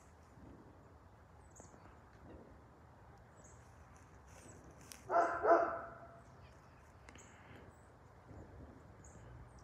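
A dog barks twice in quick succession about five seconds in, over the faint, steady rumble of a jet airliner passing high overhead.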